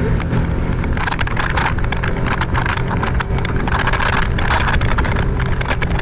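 Outboard motor of a small inflatable boat running steadily under way, with water splashing and rushing along the hull.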